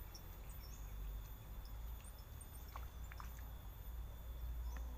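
Outdoor swamp ambience: scattered short, high wildlife chirps and a thin, steady high tone over a low rumble, with a few faint clicks about three seconds in.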